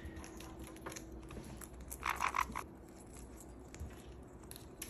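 A pet parrot gives one short, raspy call about two seconds in, with a few faint clicks around it.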